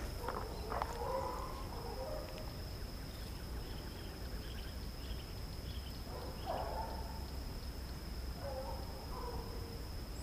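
Distant hunting dogs baying on a wild boar's trail, a few drawn-out cries that come and go, over a steady high insect drone. A run of short high chirps, like a small bird, falls in the middle.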